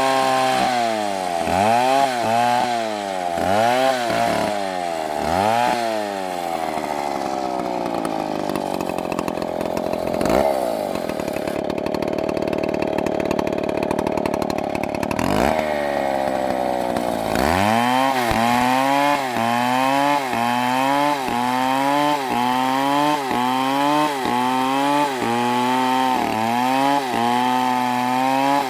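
MS720 chainsaw cutting through a big tree: the engine's pitch swells and sags about once a second as it works the cut. Through the middle it runs lower and steadier for several seconds, then climbs back up about two-thirds of the way through and picks up the rhythmic rise and fall again.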